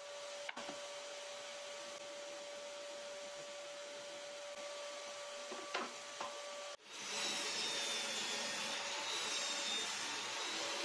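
Table saw running with a steady hum, with a few light knocks as a plywood board is set and slid on the cast table. About two-thirds of the way through, after a brief break, the sound becomes louder and rougher with a high whine as the spinning blade cuts through the plywood.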